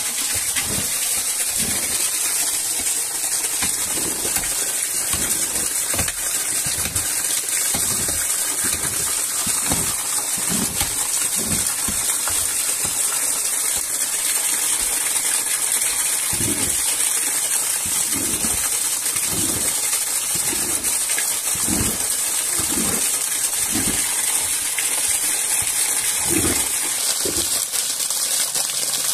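Steady rush of running water, with a series of dull knocks roughly once a second and a pause of a few seconds in the middle.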